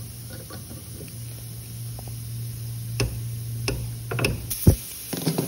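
Sharp clicks and snaps of a refrigerator's copper capillary tube being bent, broken and cut off with a hand tool. There are five or six clicks in the second half, the loudest near the end, over a steady low hum that stops at that loudest snap.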